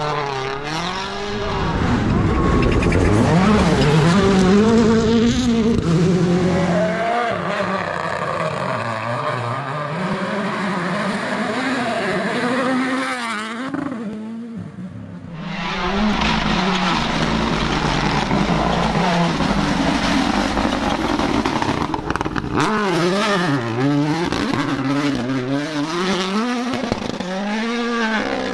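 WRC rally cars' turbocharged four-cylinder engines at racing speed on a stage, revving up and down through quick gear changes. Halfway through the sound drops away briefly before another stretch of hard engine running.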